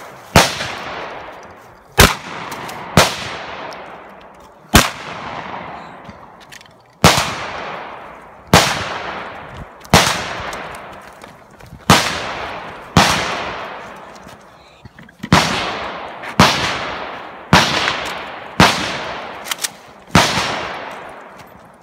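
Shotgun firing about fifteen shots, one to two seconds apart, each loud crack trailing off in a long echo.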